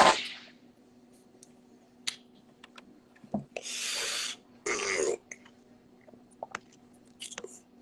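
A man's breath and mouth sounds while smoking. A sharp puff comes right at the start, a long breathy hiss comes a little past halfway, and a short throaty sound follows just after it.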